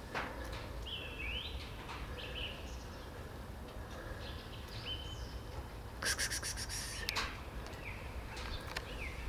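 Small birds chirping: short, high single notes, some rising in pitch and some level, every second or two over a low steady background rumble. Two brief rustling noises about six and seven seconds in.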